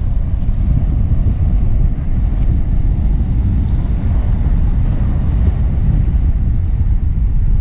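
Wind buffeting the microphone in a steady, loud low rumble, over the wash of breaking surf.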